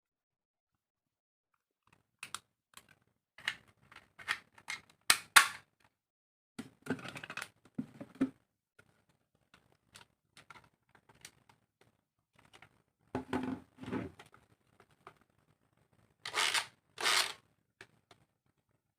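Hard plastic toy pieces being handled: a run of sharp clicks and taps, then short clattering rustles about halfway through and again near the end.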